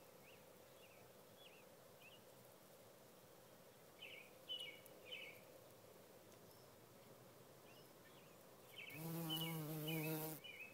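A bumblebee's low wing buzz, loud and close for about a second and a half near the end as it lifts off the clover flower. Before that the background is faint, with a few short high chirps.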